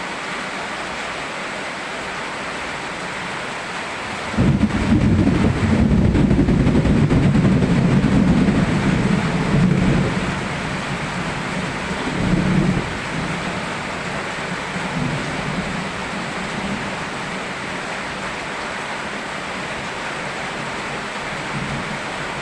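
Steady rain hiss with a roll of thunder that breaks in suddenly about four seconds in. The thunder rumbles loudly for several seconds, then dies away in a few weaker swells.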